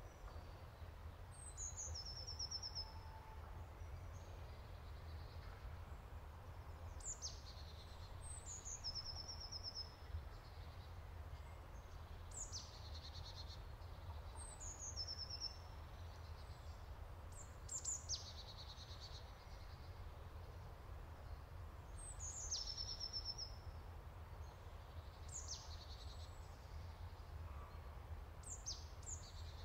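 A songbird singing short, high phrases every few seconds, each a quick falling note running into a fast trill, over a steady low rumble.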